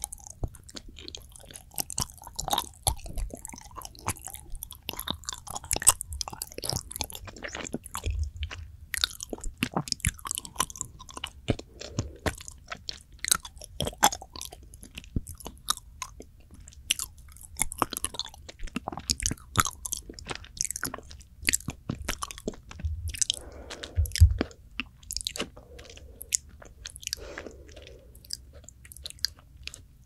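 Close-up chewing of a soft, fudgy planet-shaped chocolate ball: dense wet, sticky mouth clicks and smacks, several a second, with a few low thumps.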